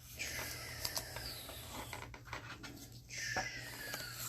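A trading card being slid into a plastic card holder, twice: two long, squeaky scrapes of card against plastic, each falling in pitch, with a few light clicks.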